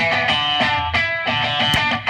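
Music with guitar, notes changing quickly in a steady run.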